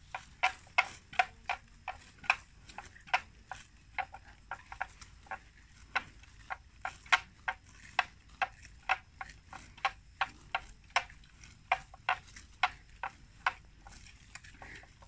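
Water buffalo grazing close by, tearing and cropping grass in a run of crisp snapping bites at about two a second, which stop near the end.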